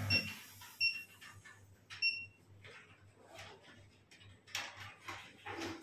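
A hydrafacial machine's hydrogen vibration pen buzzes and cuts off right at the start. The touchscreen then gives three short electronic beeps as it is pressed, followed by soft rustling and light knocks as the handpiece is handled.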